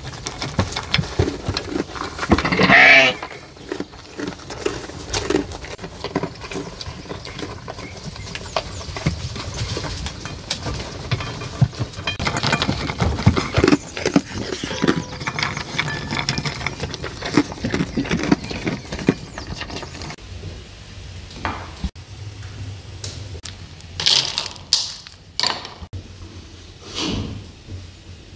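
A young goat eating dry feed pellets from a metal bowl: many short crunching clicks, with one louder noise about three seconds in. Near the end come a few sharp knocks.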